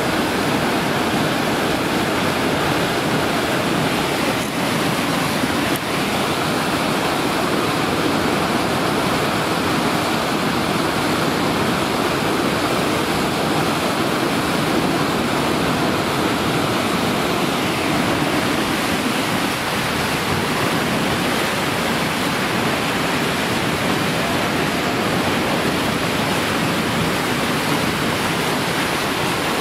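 Whitewater river rapids rushing: a loud, steady, unbroken roar of churning water.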